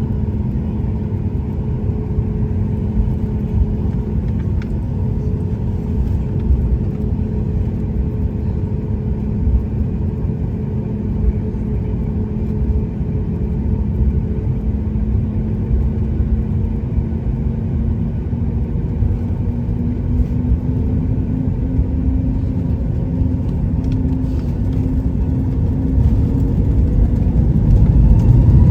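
Cabin sound of a Boeing 737-8 MAX with its CFM LEAP-1B jet engines running: a steady low rumble with a hum. The hum rises a little in pitch about two-thirds of the way through and the sound grows louder near the end as engine thrust builds toward the take-off roll.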